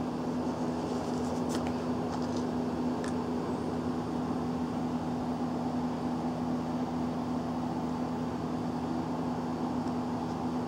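A steady machine hum with one constant low tone, unchanging throughout. Two faint clicks in the first few seconds as the plastic lid of a tub is pried off.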